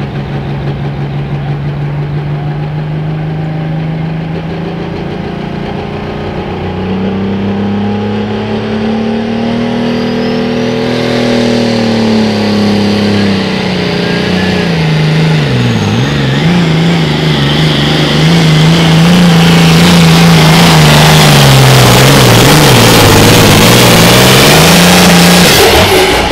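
Light limited super stock pulling tractor's engine revving under full throttle through a pull. It holds a steady note at first, climbs, then dips and recovers several times as it grows louder, and cuts off suddenly near the end.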